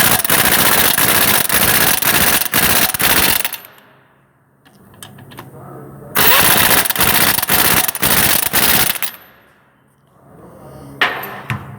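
Impact wrench hammering in two runs of about three to four seconds each, with a sharp knock near the end.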